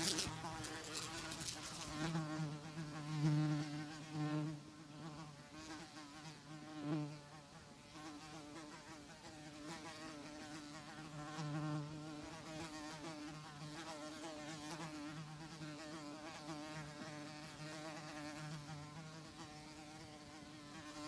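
Housefly buzzing in flight, a steady wing drone whose pitch wavers slightly. It swells louder and fades several times, loudest about two to four seconds in.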